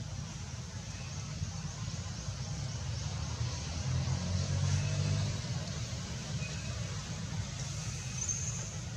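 Steady low rumble of distant road traffic, swelling briefly about four seconds in, with a few faint short high chirps above it.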